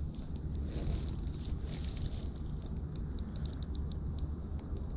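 Spinning reel clicking in quick, irregular runs of small ticks while a hooked wels catfish is played on the line, over a low steady rumble.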